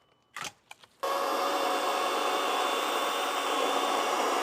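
Electric motor of a Toro 60-volt battery-powered saw running steadily, starting abruptly about a second in after a couple of short clicks.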